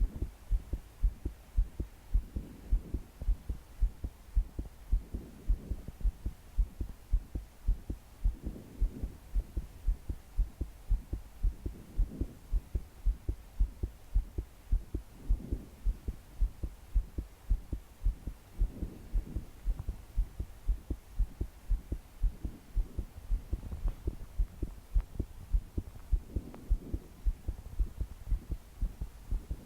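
A young woman's heart beating fast and hard: a steady run of low, regular thumps, about two a second, the pounding of palpitations. Slow deep breaths swell and fade under it every three to four seconds.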